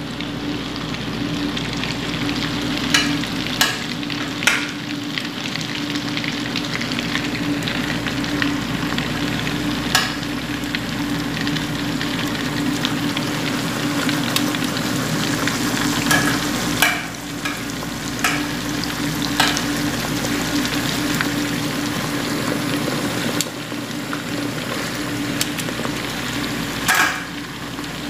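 Beef frying in melted butter in a nonstick pan: a steady sizzle with a few sharp clicks and pops scattered through it.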